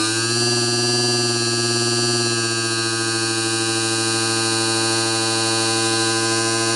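Brushless DC motor spindle with an ER16 collet chuck running at high speed: a steady electric whine over a lower hum. Its pitch rises a little at the start as the speed knob is turned up, then holds level.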